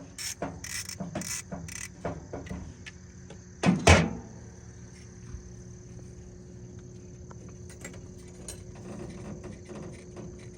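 Metal hand tools clinking and knocking while working a power steering line fitting loose, with a cluster of sharp clicks in the first few seconds and the loudest knocks about four seconds in, then quieter handling over a faint steady high whine.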